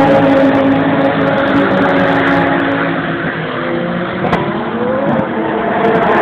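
GT race car engine running steadily at pit-lane speed, its note holding level and then rising briefly about five seconds in. A single sharp click comes just after four seconds.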